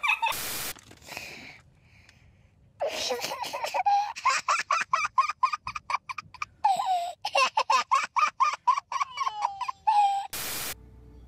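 A little girl laughing hard, rapid bursts of high giggling belly laughter starting about three seconds in and running for about seven seconds. A short burst of hiss comes just after the start and again near the end.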